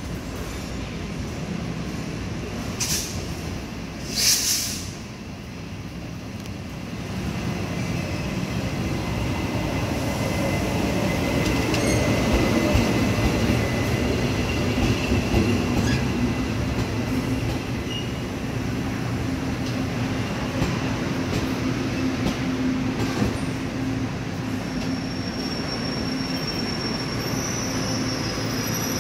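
Electric locomotive E407 hauling a passenger train into a station and slowing to a stop. The rumble of the wheels and train builds as the locomotive passes, with high squealing from the brakes and wheels, and a steady hum once the train is nearly stopped. Two short, sharp bursts come a few seconds in, before the train arrives.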